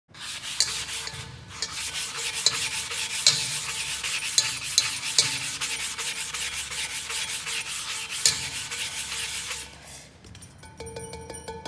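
Abrasive sanding sponge scrubbing a stain off a metal cookware surface in rapid rough strokes. The scrubbing stops about ten seconds in, giving way to a quieter, fast even ticking.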